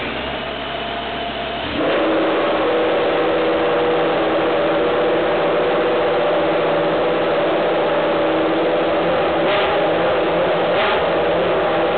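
Minardi Formula One car's engine being started in the garage: a starter whirs for about two seconds, then the engine catches and runs at a steady fast idle.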